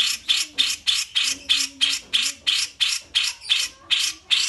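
Songbird giving a rapid run of harsh, rasping call notes at an even pace of about three to four a second, from a masteran recording of cucak jenggot and kapas tembak calls.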